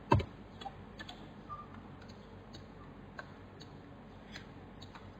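Faint, irregular clicking of a computer mouse and keyboard, with one sharper click right at the start.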